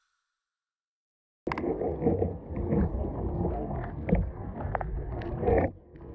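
Silence for about a second and a half, then underwater sound picked up by a submerged camera: a low churning rumble of moving water with scattered clicks and crackles. It swells just before the end, then drops suddenly.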